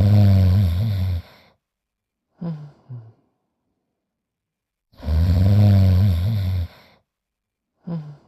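Cartoon dog snoring: a long, low, rattling snore followed by two short snorts, the cycle repeating about every five seconds.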